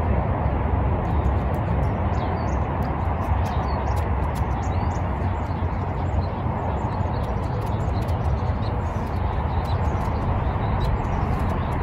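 Small birds chirping faintly and intermittently over a steady low rumble of outdoor background noise.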